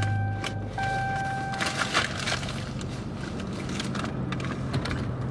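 Fast food being eaten in a car: scattered crackles and smacking clicks from chewing and wrappers over a steady low hum. A held tone breaks off and resumes, then stops about a second and a half in.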